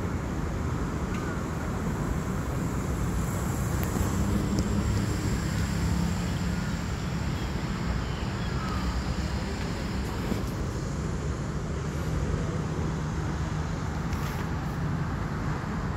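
Steady low hum of city road traffic.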